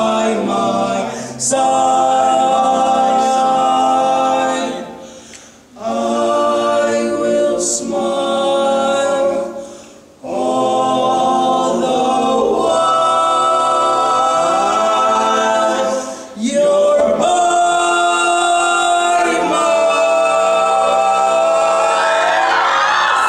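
Barbershop quartet of four young male voices singing a cappella in close four-part harmony, holding long chords with short pauses between phrases. Near the end the voices slide upward and swell.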